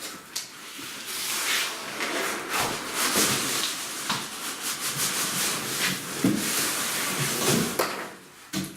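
Cardboard scraping and rubbing as a heavy inner carton is slid out of an outer corrugated carton, with a few knocks from the boxes shifting.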